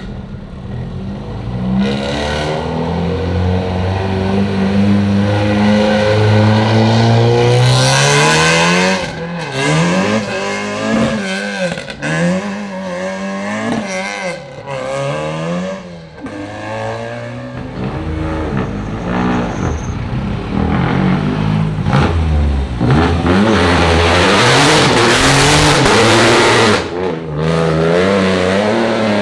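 Rally car engine revving hard, its pitch climbing and falling again and again as the car accelerates and brakes to warm its tyres and brakes. It twice swells into a loud rush of noise, about eight seconds in and again near the end.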